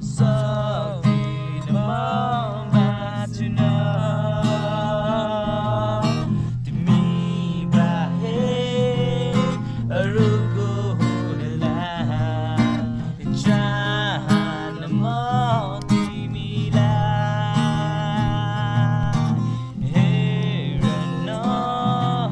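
Acoustic guitar strummed steadily, with a voice singing a melody over it.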